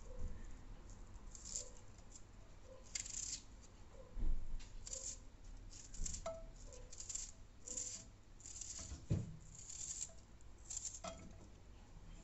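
An onion cut by hand with a small knife, each cut a short crisp crunch, coming irregularly every half second to a second, with the slices dropping into an oiled frying pan. Two dull thumps, about four and nine seconds in, are the loudest sounds.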